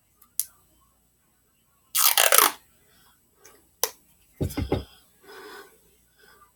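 A strip of medical tape ripped off sharply about two seconds in, followed by a click and a few low knocks of handling.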